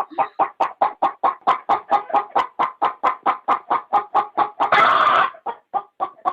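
A hen clucking in a fast, even series, about five clucks a second, with a brief rasping burst about five seconds in.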